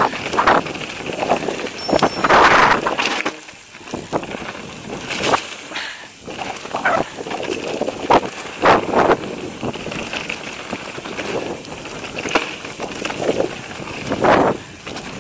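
Mountain bike riding over a rocky forest trail: tyres rolling over stone and the bike rattling, with irregular knocks and clatters and swells of wind noise on the microphone.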